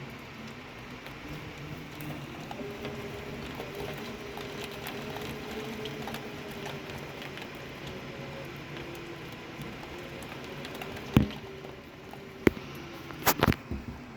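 Storm rain pattering steadily, with a faint low hum underneath. Several sharp knocks come near the end: one about eleven seconds in, one a second later, and a quick double knock just after.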